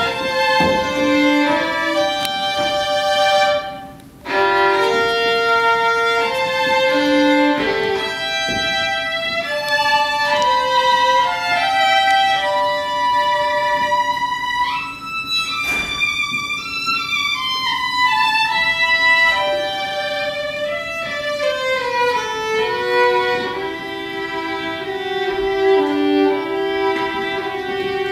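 Solo violin playing a melody, at times sounding two notes at once, with a brief break about four seconds in.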